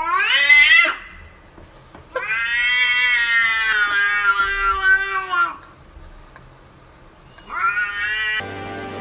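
Domestic cat yowling in three drawn-out calls: a rising yowl in the first second, a long one lasting about three seconds whose pitch drops at the end, and a short rising call near the end.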